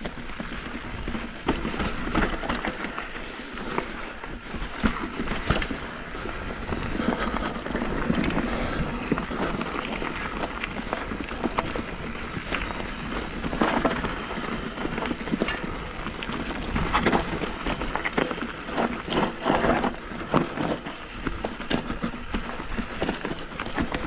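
Mountain bike rolling down a rocky dirt singletrack: tyres crunching over stones and pine needles, with frequent rattles and knocks from the bike over bumps. Wind rumble on the microphone underneath.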